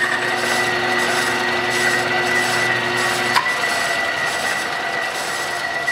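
Tree vertical milling machine running, its end mill cutting a small metal part with a steady high whine and grinding cutting noise. About three and a half seconds in there is a click and the lower hum drops away while the high whine carries on.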